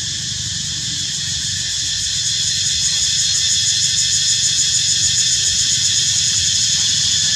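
Steady high insect chorus with a fast pulsing ripple, getting louder about two seconds in, over a low rumble.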